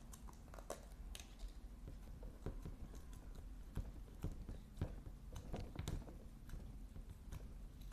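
Fluffy crunch slime being squished and stretched by hand, giving soft, irregular clicks and crackles.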